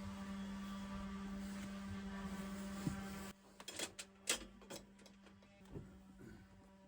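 Handheld power cutting tool running steadily at a high pitch while cutting a part down to fit. It stops suddenly about three seconds in, then a few sharp clicks and knocks follow.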